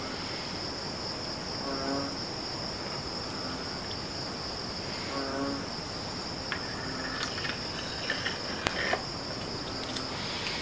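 Steady high-pitched chirring of crickets. Near the end come several light clicks and one sharp knock as the keris is slid back into its wooden sheath.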